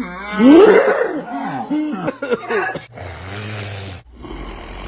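A man's loud, drawn-out sneeze: a voiced wind-up that rises sharply in pitch about half a second in, followed by a string of shorter vocal sounds and a lower, steadier sound near the end.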